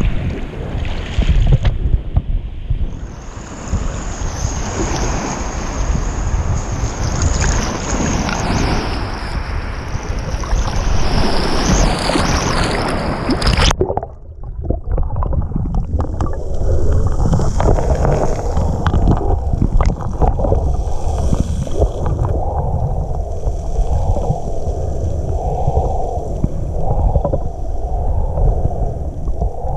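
Lake water sloshing and gurgling around a waterproof camera at the surface, with a steady low rumble. About halfway through, the sound cuts to a muffled underwater rumble as the camera goes under.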